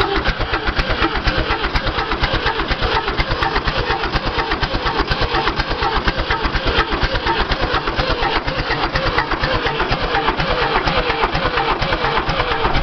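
David Brown 1490 tractor's four-cylinder diesel engine running steadily just after a cold start, with an even, rapid diesel knock.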